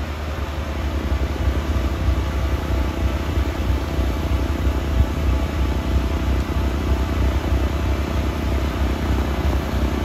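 Compact sidewalk tractor with a front-mounted snowblower, its engine and blower running steadily while throwing snow. The rumble grows a little louder over the first couple of seconds as the machine comes closer.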